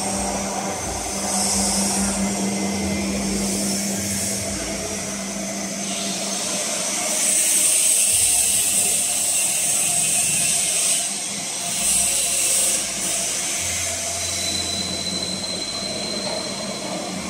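Briquette-making machinery running: a steady motor hum under a hiss that swells several times.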